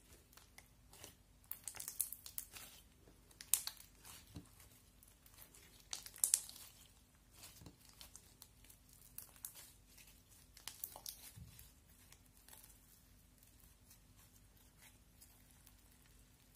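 Sticky slime full of tiny foam beads being stretched, folded and kneaded by hand, giving irregular crackles and sharp sticky snaps. The loudest snaps come about three and a half and six seconds in, and the crackling thins out to a few faint clicks over the last few seconds.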